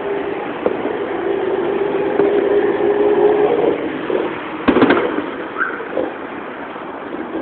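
Fireworks heard over a steady background hum: a quick cluster of sharp cracks a little past halfway, with a few fainter pops around it.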